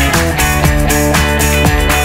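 Loud background rock music with guitar and a steady beat.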